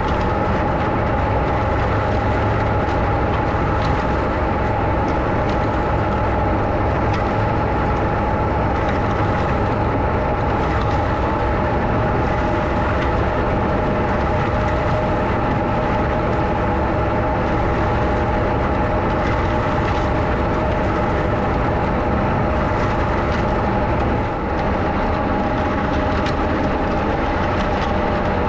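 A Massey Ferguson 178 tractor and the trailed manure spreader it drives running steadily while spreading chicken manure: a continuous mechanical drone with a steady whine through it.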